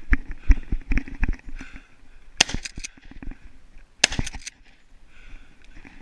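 Heavy footsteps thudding on a grassy bank, with the camera jostling, then two brief clusters of sharp cracks about a second and a half apart as a shotgun is brought up.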